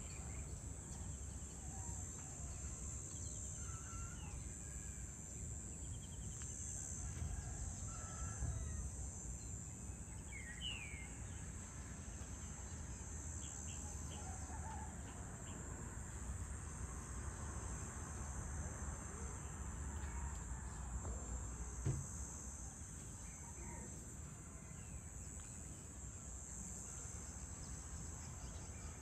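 Evening insect chorus, a steady high-pitched buzz, with short bird calls scattered through it over a low background rumble.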